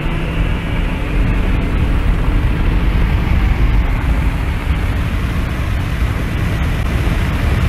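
Car running flat out at high speed, heard from inside the cabin: a steady, loud roar of wind, tyres and engine, heaviest in the low end, building slightly in the first second and then holding.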